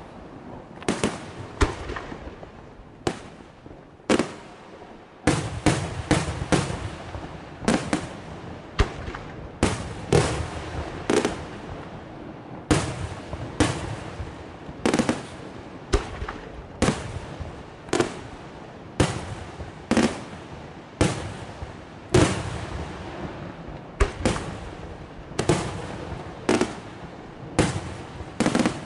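Aerial firework shells bursting in quick succession, about one to two bangs a second, each trailing off in an echo, with a thinner spell a few seconds in.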